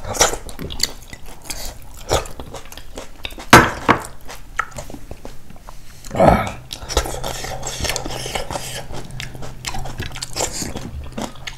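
Spoons and plates clinking as food is eaten, with chewing, in a series of short knocks; a sharp knock about three and a half seconds in is the loudest.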